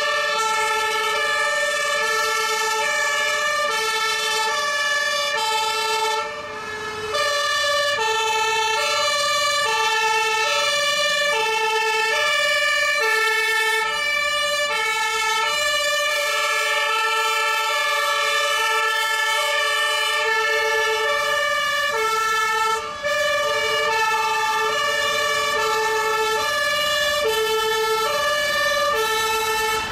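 Fire engines' two-tone sirens sounding together and out of step, so their alternating high and low notes overlap into a jumble of tones. The sound drops away briefly about six seconds in and again near twenty-three seconds.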